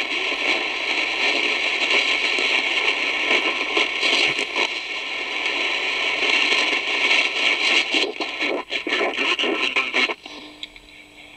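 Lowe HF-225 Europa shortwave receiver being tuned between stations in the 31 m band: loud hiss and crackling static with interference. About ten seconds in, the noise drops away and a steady low tone is left as the next signal comes in.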